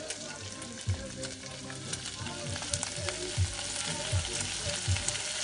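Diced chicken sizzling and crackling in a hot pan with no oil, frying in its own fat, with several dull low knocks through it.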